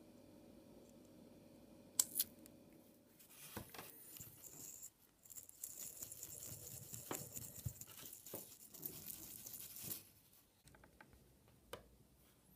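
A toothbrush scrubbing the rubber boot of a Honda Fit ignition coil during cleaning: a faint, uneven scratchy brushing that starts about four seconds in and stops about ten seconds in. Two sharp clicks come about two seconds in.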